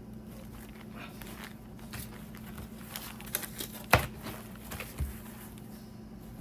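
Soft rustling and handling of packages, with a sharp knock about four seconds in and a softer thump about a second later.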